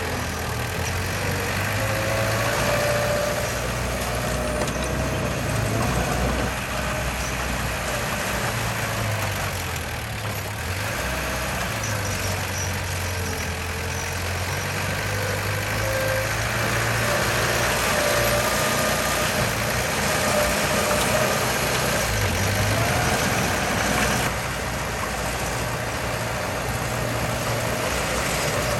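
Heavy diesel engine of earthmoving machinery running steadily, its note shifting up and down a few times as the load changes.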